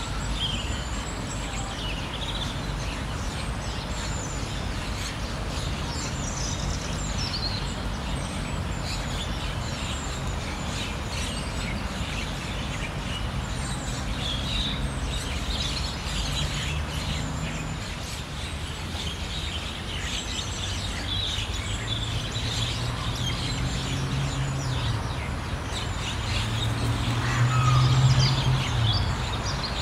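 Small birds chirping in short, scattered calls over a steady low rumble. A low hum swells in the second half and is loudest near the end.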